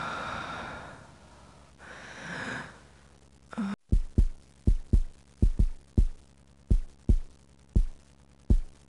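Heartbeat sound effect: low double thumps in a steady lub-dub rhythm, about one beat pair every three-quarters of a second, starting about four seconds in. Before it, two breathy swells like heavy sighs or gasps.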